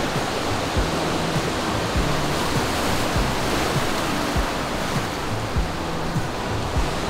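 Surf breaking and washing over a rocky shoreline, a steady rush of water, under background music with a steady beat.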